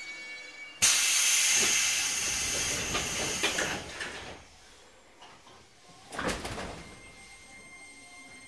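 Compressed-air hiss from a 205 series commuter train's pneumatic door engines as the doors close before departure: a sudden loud hiss about a second in that lasts some three seconds, then a shorter hiss about six seconds in.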